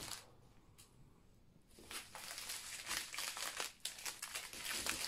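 Plastic packaging crinkling as a wrapped bundle of small plastic bags of diamond-painting drills is handled and unwrapped. After a light tap or two, a dense crackle of plastic starts about two seconds in and keeps going.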